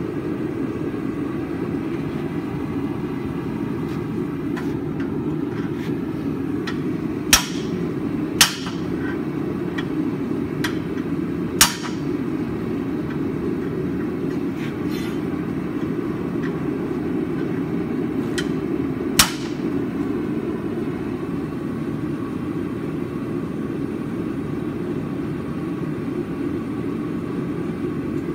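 Hammer blows on wrought iron at the anvil while forging a volute, scattered and irregular, the four loudest about 7, 8, 12 and 19 seconds in, over a steady low rumble.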